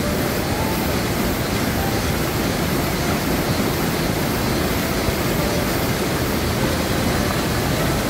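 Small mountain-stream waterfall, water rushing steadily through a narrow rock chute into a pool.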